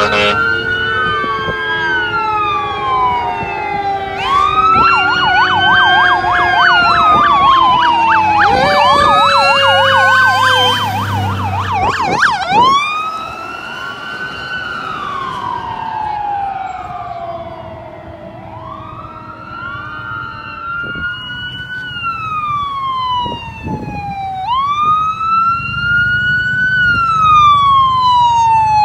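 Electronic sirens of fire engines running on an emergency call: overlapping slow wails, switching to a fast yelp as the trucks pass, with a low engine rumble. Near the end another wail siren grows louder as an ambulance approaches.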